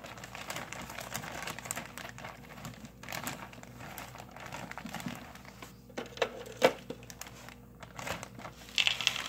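Plastic freezer bag crinkling and rustling as it is handled with six blue crabs inside, with a couple of sharper knocks a little past halfway.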